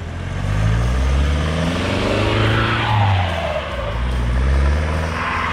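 Land Rover Defender 110 engine pulling through fresh snow, its revs climbing over the first couple of seconds, easing off, then rising again near the end.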